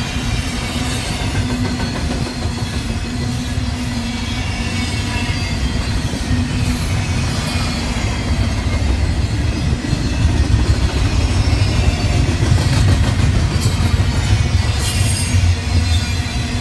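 Double-stack container well cars of a freight train rolling past on the rails: a steady, loud rumble of steel wheels on track, growing louder about two-thirds of the way through.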